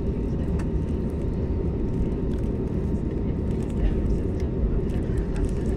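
Cabin noise inside an Airbus A320neo: a steady low rumble from the engines and airflow, with scattered small clicks and rattles from the cabin fittings.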